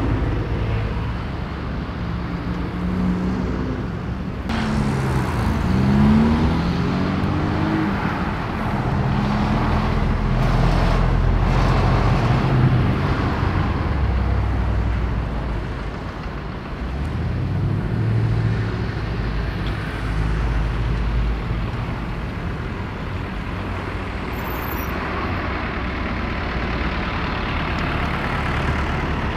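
Road traffic: lorries and cars passing close by, their engines running and pulling away, with engine pitch rising as vehicles accelerate about five seconds in and again past the middle.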